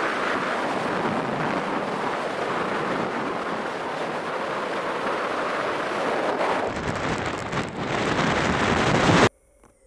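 Heavy wind noise buffeting the camera microphone on an open beach, with surf on the shore beneath it. It cuts off suddenly near the end.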